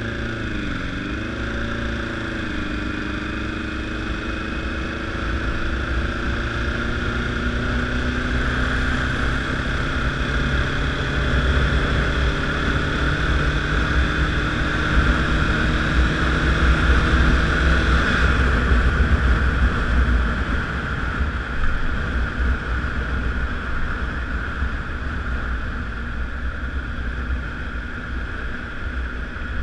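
Honda CBR1000RR sportbike's inline-four engine under way, heard on the move with a strong wind rush. After a brief dip near the start, the engine note climbs slowly as the bike pulls through a gear. About two-thirds of the way in the engine note drops out, leaving the wind noise, which then eases off.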